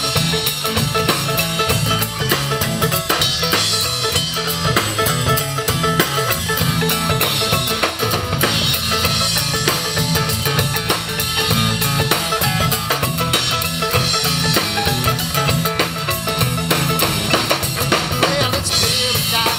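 Live band playing an instrumental passage with no singing: drum kit keeping a steady beat under guitars and bass.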